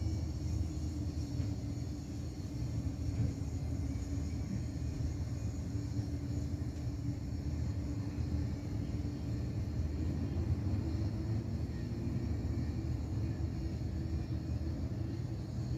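Steady low rumble of distant road traffic from the elevated highway far below, with a faint steady hum over it.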